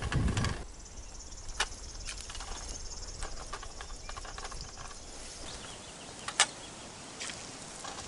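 An insect chirring steadily at a high pitch, starting about half a second in. Over it come rustling and a few sharp clicks of the wearer moving in the grass, with a low thump at the very start and the loudest click about six seconds in.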